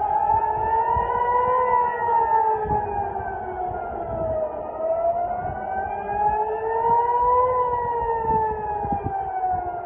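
Civil defense air-raid siren wailing, its pitch slowly rising and falling, peaking about every six seconds: the alert warning of an incoming missile attack.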